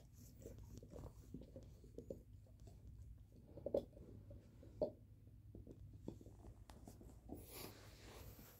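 Great Pyrenees gnawing a beef marrow bone: faint scraping and small clicks of teeth on bone, with two sharper cracks a little under four and five seconds in.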